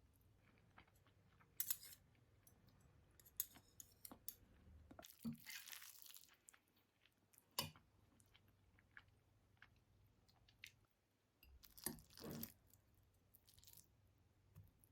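Quiet handling sounds: scattered light clicks, taps and brief rustles, with a few sharper knocks.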